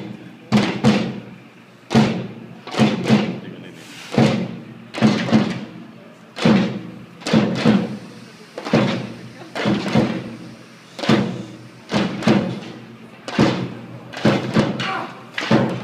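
A drum beaten in a slow, repeating rhythm: one beat followed by two quicker beats, the pattern coming round about every two and a bit seconds, each stroke ringing briefly.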